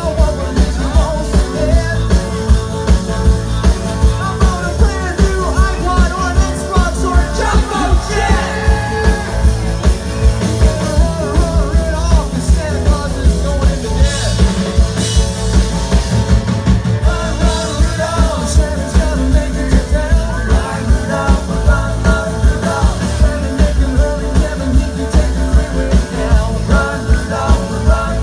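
Live band playing an upbeat rock song: a singer over guitars and a drum kit keeping a steady fast beat.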